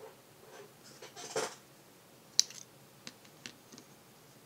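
Hand-handling sounds from a fountain pen being picked up off a notebook page: a brief paper rustle, then one sharp click and a few lighter clicks.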